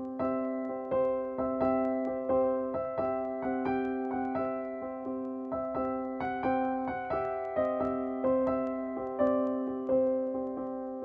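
Background piano music: gentle notes struck in a steady rhythm, each ringing and fading.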